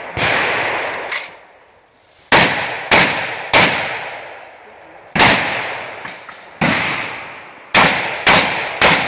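Vepr-12 semi-automatic 12-gauge shotgun firing about nine shots at an irregular pace: one, a pause, three quick shots about half a second apart, two spaced shots, then three fast ones near the end. Each shot rings on in a long echoing decay.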